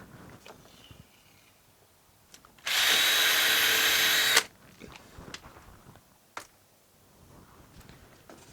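Power drill running for under two seconds, about three seconds in, boring a small hole through a 5 mm plywood panel just until it touches the van's steel wall behind, to mark where the rivnut holes will go. It starts and stops abruptly, with a few faint handling clicks before and after.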